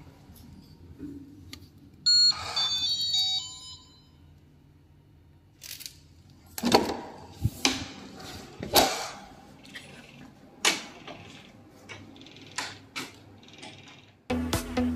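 A short electronic chime of several tones, then a run of sharp clunks and rattles of keys and door hardware.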